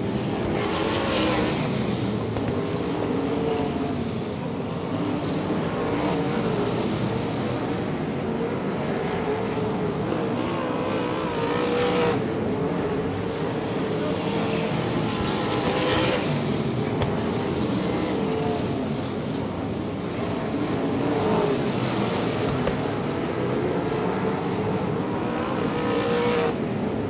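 A pack of wingless 360 sprint cars racing on a dirt oval, their 360 cubic-inch V8 engines running in a steady din, with a louder rush about every four to five seconds as cars pass close by.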